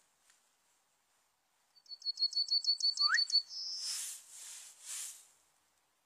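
Male yellowhammer singing one song phrase: a quick run of about ten repeated high notes ending in a longer drawn-out note. Two short hissy bursts follow, about a second apart.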